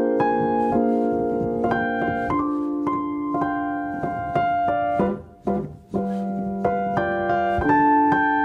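Solo piano music playing slow, held chords, with a short drop in loudness about halfway through.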